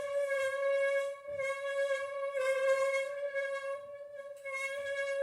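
Friction tone from a billiard 8 ball rubbed by a turning poplar-wood triangle frame: a steady, sustained singing note with a row of overtones, swelling and dipping in loudness like a bowed or rubbed glass.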